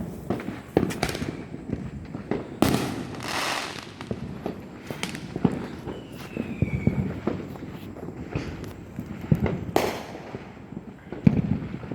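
Fireworks and firecrackers going off: scattered sharp bangs and crackles, with a longer hissing burst about three seconds in and a brief falling whistle about six seconds in.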